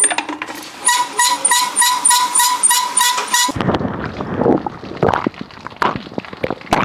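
A well pulley squeaks in a fast, even rhythm, about five squeaks a second, as a rope draws water up. It cuts off abruptly about three and a half seconds in. Then water poured from a metal bucket splashes onto cupped hands and a face being washed.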